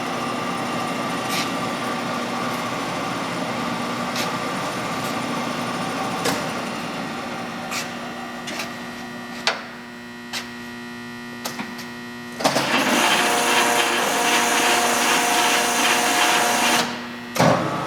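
Leblond 15-inch servo shift lathe running under power: a steady machine hum with gear tones, first at low spindle speed with a few sharp clicks. About twelve seconds in it turns suddenly much louder and busier, as the spindle runs at a higher speed. It drops out abruptly for a moment near the end.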